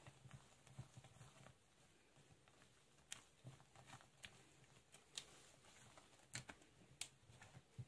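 Near silence, with faint irregular clicks and soft pats of a utensil against a glass bowl as whipped egg whites are folded into cake batter.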